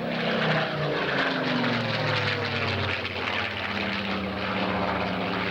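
Piston-engined propeller warbirds making a low, fast flypast, their engine note dropping in pitch as they pass.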